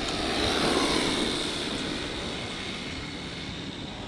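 Arrma Vorteks RC stadium truck's brushed 550 electric motor and drivetrain whining as it speeds off down the asphalt in its 50% throttle mode. The whine is loudest about a second in, then fades as the truck pulls away.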